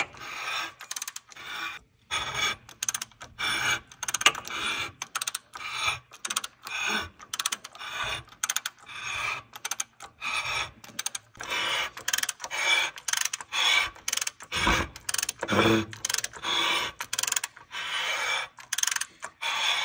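Hand ratchet turning a counterbore cutter on a Caterpillar 3406 diesel block. It goes in a steady run of short strokes, about two to three a second, ratchet clicks mixed with the cutter head scraping metal as it cuts the cylinder liner's counterbore ledge.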